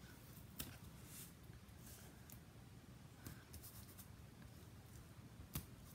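Faint paper rustling and soft taps as fingers lay strips of double-sided adhesive tape along a card panel and press them down, with a sharper tap about half a second in and another near the end.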